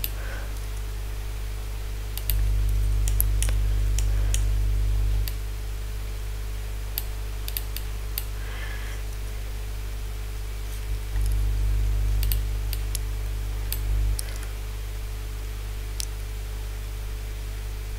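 Scattered clicks of a computer mouse and keyboard keys over a steady low electrical hum. The hum grows louder for a few seconds at a time, twice.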